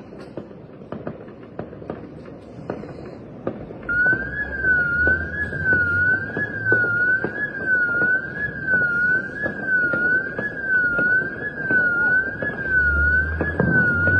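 Electronic siren wailing up and down about once a second, starting abruptly around four seconds in. Before it, scattered sharp pops of firecrackers.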